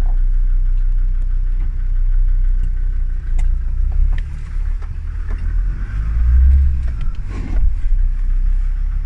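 Land Rover Defender driving over a rough, muddy track, heard from inside the cabin: a steady, heavy low rumble of engine and tyres that swells and dips, with a few sharp knocks.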